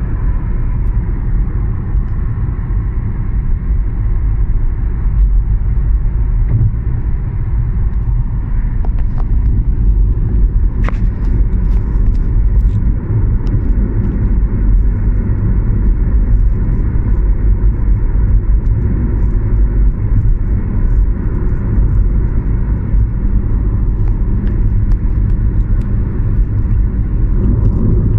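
Dubai Metro Red Line train running at speed, a loud, steady rumble heard from inside the carriage, with one brief sharp tick about halfway through.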